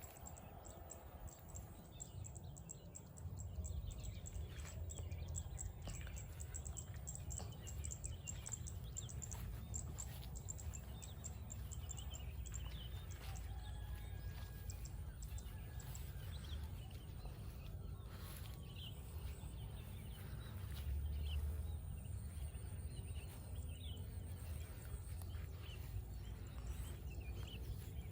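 Rice-field ambience: scattered short bird chirps over a steady low rumble, with a fast high ticking through the first half.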